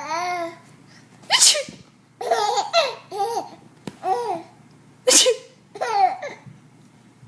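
A woman sneezing twice on purpose, sharp put-on sneezes about four seconds apart, and a 4-month-old baby laughing in short bursts after each one.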